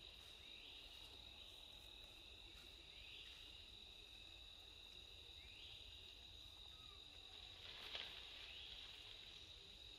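Faint, steady high-pitched insect drone, with a short rising chirp repeating about every two to three seconds and a soft tap about eight seconds in.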